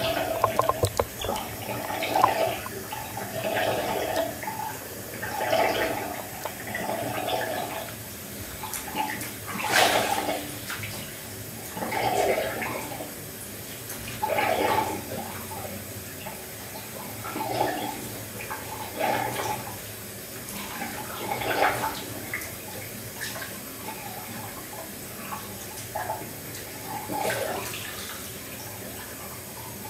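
Water pouring in a stream into a filling bathtub, with repeated swells of sloshing and splashing every second or two as legs in wet shoes and clothes move through the water.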